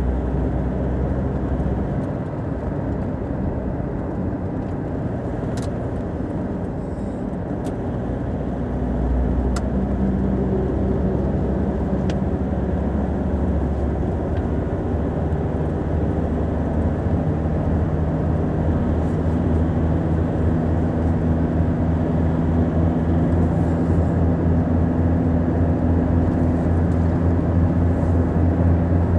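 Maruti Suzuki car driving on a highway, heard from inside the cabin: a steady low engine hum over tyre and road noise. About a third of the way in, and again past the middle, the engine note climbs and gets a little louder.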